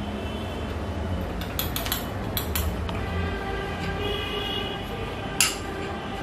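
Spoon clinking against a small ceramic bowl as spice mix is scraped out of it onto popcorn: a few light clinks about two seconds in and one sharper clink near the end, over a steady low hum.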